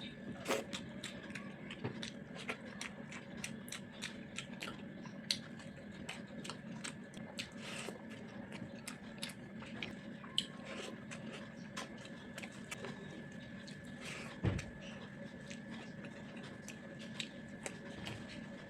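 A person eating, with many small irregular chewing and mouth clicks over a faint steady hum; one dull thump comes about three-quarters of the way through.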